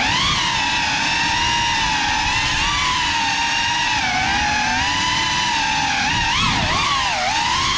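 GEPRC Cinelog35 cinewhoop drone's brushless motors and ducted propellers whining steadily. The pitch rises and falls with throttle as it manoeuvres, swinging most near the end as it ducks under a table.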